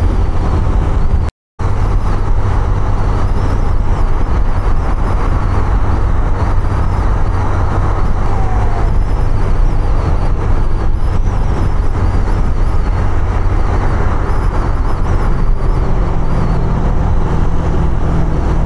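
Riding noise from a Honda CB 150F motorcycle cruising in traffic: a steady engine and wind rush with road noise, strongest in a low rumble. The sound drops out completely for an instant a little over a second in.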